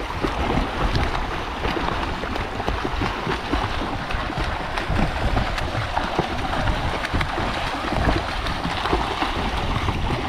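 Continuous, irregular splashing of several children swimming front crawl close by, their arm strokes and kicking legs churning the river water.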